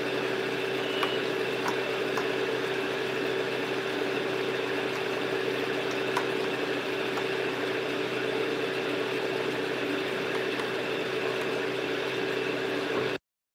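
A steady mechanical hum with a constant whirring tone and no change in pitch, which cuts off abruptly near the end.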